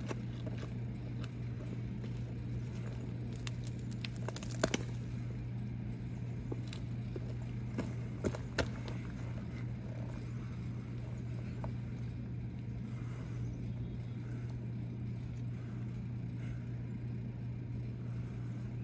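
Steady low outdoor hum, with a few short sharp taps about four and a half seconds in and again around eight seconds in.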